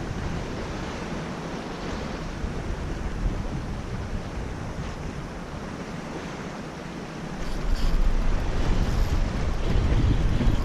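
Sea surf washing on the shore with wind buffeting the microphone; the wind gets much louder about two-thirds of the way in.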